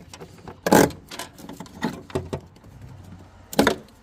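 Several sharp clicks and knocks as plastic retaining clips are pried off a car's battery positive cable, the loudest about a second in and another near the end.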